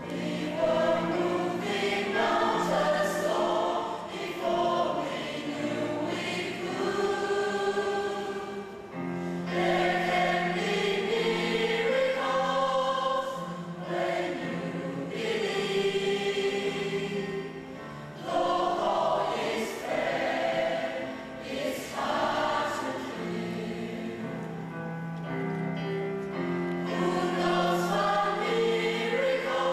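Mixed choir of men's and women's voices singing in parts, in phrases that swell and ease off every few seconds.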